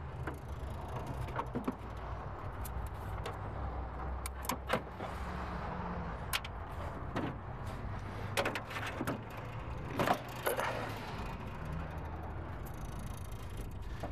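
Scattered light clicks and clinks as a car battery's cable and terminal are handled and fitted against metal in the engine bay, over a steady low hum.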